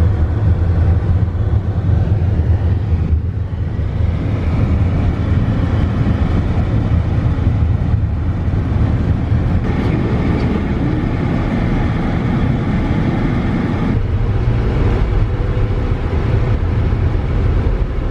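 A car driving, heard from inside the cabin: a steady, loud low rumble of road and engine noise, shifting slightly a few times.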